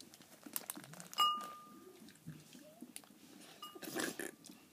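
Quiet crunching and small handling clicks from eating chocolate Pocky sticks, with a short ringing clink about a second in and a shorter one near the end.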